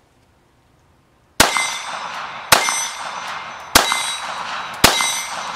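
Four pistol shots from a Glock 19 Gen 4 9mm, fired about a second apart, each followed by a ringing tail. They start about a second and a half in.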